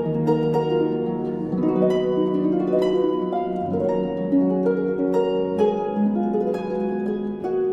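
Background music: a gentle plucked-string melody, notes picked several times a second and left ringing over one another.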